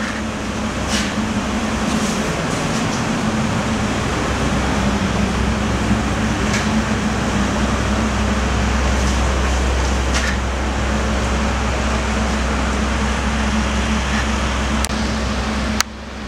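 Steady drone of running machinery with a low hum, building over the first few seconds after the isolator is switched on, with a few faint clicks; it dips sharply near the end.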